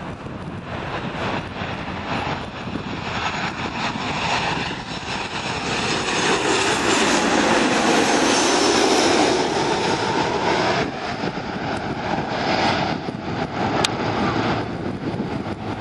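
Boeing 737 jet airliner on final approach passing low overhead. Its engine noise builds to a peak about halfway through and then fades.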